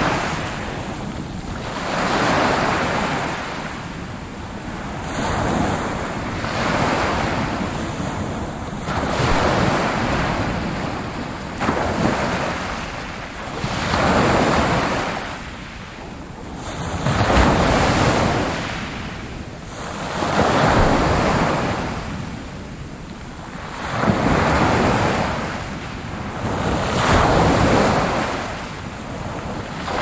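Small ocean waves breaking and washing up a sandy beach, the surf swelling and ebbing about every three seconds.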